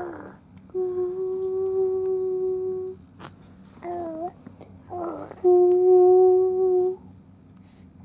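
Mother and baby vocalising back and forth on one pitch: two long held hummed notes, the second louder, with short cooing sounds that bend in pitch between them.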